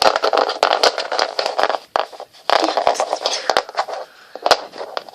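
Close handling noise of plastic toys being moved about: many sharp clicks, scrapes and rattles.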